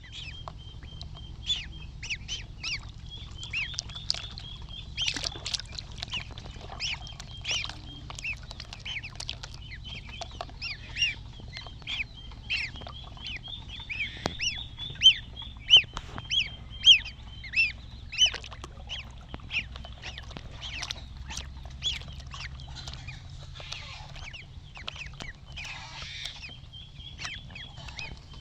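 Ducklings peeping: many short, high-pitched, falling peeps over a continuous high trill, with a few louder calls about halfway through. A low steady hum sits underneath.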